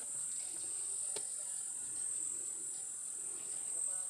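Steady, high-pitched chorus of insects trilling, with a faint click about a second in.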